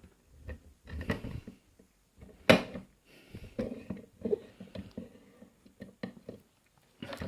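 Handling noise of a padlock and picking tools: scattered light clicks and knocks, with one sharper knock about two and a half seconds in.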